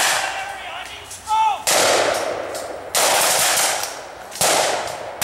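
Blank-firing guns in a reenacted Vietnam War firefight. There are several sharp reports, and two sustained bursts of automatic fire of about a second each, around two and three seconds in.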